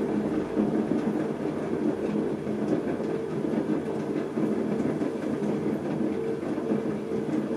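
Electric potter's wheel running steadily, its motor giving a hum of several steady tones, while wet hands collar in the spinning clay cylinder of a mug.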